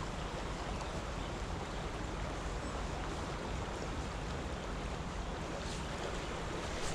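Steady, even rushing noise of flowing creek water and falling rain.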